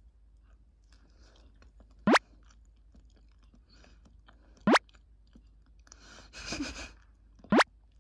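Three short, loud chirps that sweep quickly upward in pitch, about two and a half seconds apart, over soft chewing sounds.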